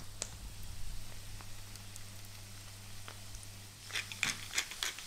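Hot duck fat sizzling and crackling in a metal roasting tray of smashed potatoes fresh from the oven, over a steady low hum, with a cluster of sharper crackles near the end.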